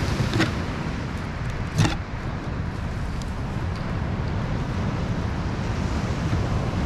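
Steady low rumble of surf and wind on the microphone, with two short sharp knocks, one about half a second in and a louder one just under two seconds in.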